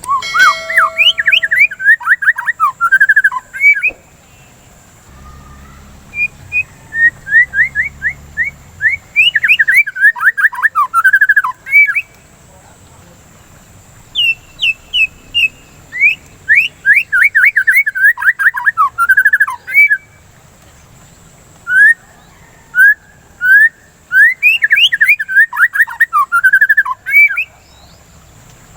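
White-rumped shama (murai batu) singing: four bursts of rapid, sweeping whistled notes, each lasting a few seconds, with short pauses between them. A faint steady high-pitched tone sits underneath.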